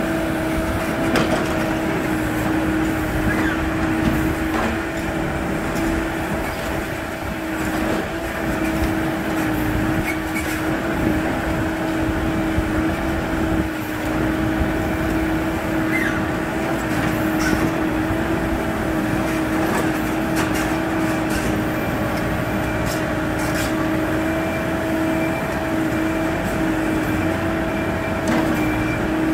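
Diesel engine of a backhoe loader running steadily, with a constant whine held at one pitch throughout.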